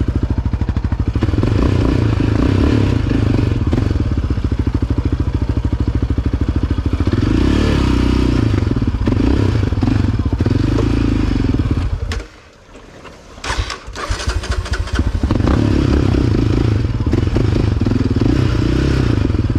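Yamaha Raptor 700R quad's single-cylinder four-stroke engine running while ridden, the throttle opening and easing in turn. About twelve seconds in the engine sound drops away for a second or two, a few clicks follow, and it picks up again.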